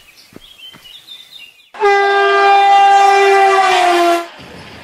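Train horn sounding one long blast of a little over two seconds, its pitch sagging slightly just before it stops. A steady rumble of the train follows.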